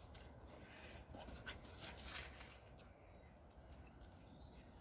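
Near silence: faint outdoor background with a few brief soft noises, the loudest about two seconds in.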